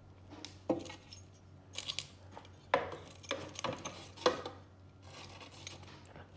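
Metal kitchen tongs clicking and clacking against the air fryer basket and each other as chicken pieces are turned over, about six scattered clacks.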